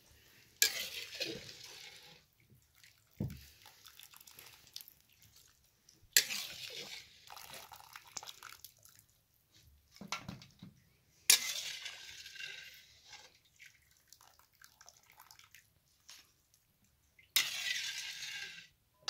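Broth poured and splashing into a metal pot in four short pours about five seconds apart, each starting sharply and tailing off over a second or two.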